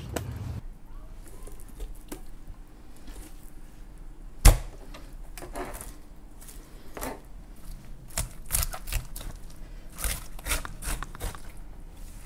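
Knife work on a salmon head on a plastic cutting board. There is one loud knock about four and a half seconds in, then a run of sharp clicks and knocks from the blade, bone and board in the last few seconds.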